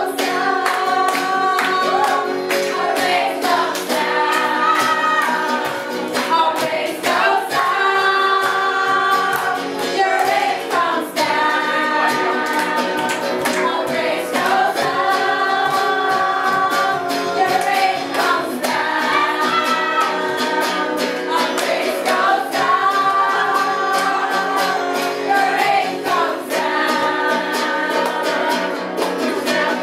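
Upbeat worship music with a group of voices singing over a steady beat.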